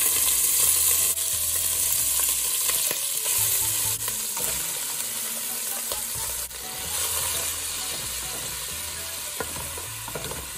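Raw ground beef sizzling in hot olive oil in a nonstick pot as it starts to brown, stirred and broken up with a wooden spatula. The sizzle is loudest just after the meat goes in and slowly dies down.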